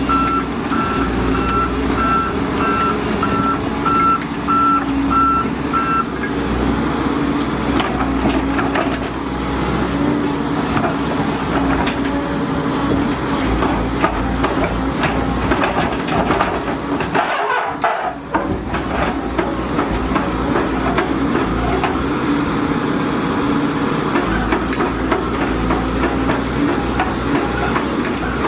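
Volvo EC210DL excavator running under work, its diesel engine giving a steady drone, with its travel alarm beeping rapidly for about the first six seconds and scattered metallic knocks throughout.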